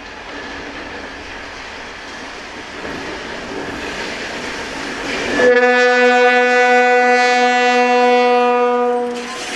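M62K diesel locomotive running light, its diesel engine growing louder as it approaches. Just past halfway it sounds its horn in one steady, loud blast of about four seconds.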